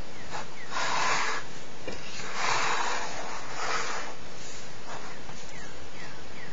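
Rubbing and scraping from a 3.5-inch hard drive being shifted in its plastic external enclosure: three soft scrapes, each about half a second long, with a few small clicks, over a steady hiss.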